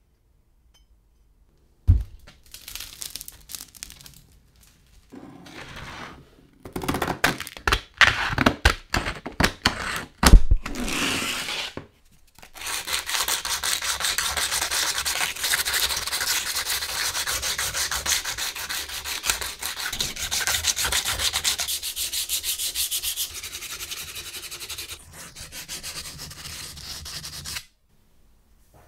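Sandpaper rubbing on a steel axe head clamped in a vise: a knock and uneven scraping strokes at first, then fast, even back-and-forth sanding strokes that stop suddenly near the end.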